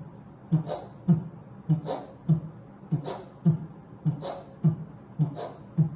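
Heart sounds imitated by mouth: a steady "lub-dub" about once a second, five beats, each with a short hiss between the first and second sound. The hiss stands for a mid-systolic (ejection) crescendo-decrescendo murmur, the kind caused by aortic or pulmonary stenosis.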